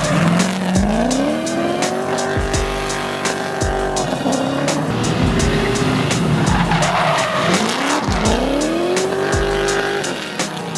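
BMW E46 drift car's engine revving up and held high while it slides, twice, with tyres squealing. Background music with a steady beat plays over it.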